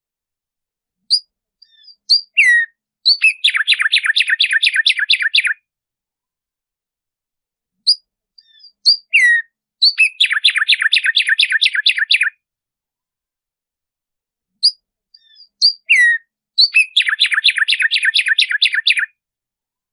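Black-striped sparrow (tumba yegua) singing three times, about seven seconds apart. Each song opens with a few separate sharp notes, one sliding down, and runs into a fast series of repeated notes lasting about two seconds.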